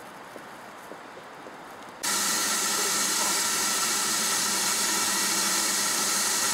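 Quiet background, then about two seconds in a loud, steady hiss of escaping steam with a whistle-like ring starts suddenly, from LMS Ivatt 2MT tank engine No. 41241.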